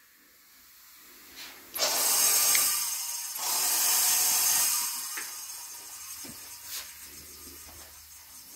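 Electrostatic powder-coating gun spraying: two hissing bursts of air and powder, starting about two seconds in and each lasting a second or two, after which the hiss dies away.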